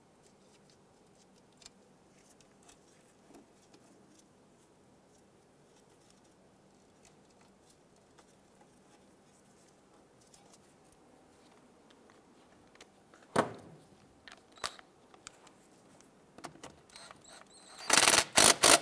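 Faint small clicks and handling of a nut being threaded by hand onto a brake-line bracket bolt, with one sharper click about two-thirds of the way through. Near the end a cordless power tool runs the nut down in a quick run of loud bursts to snug it.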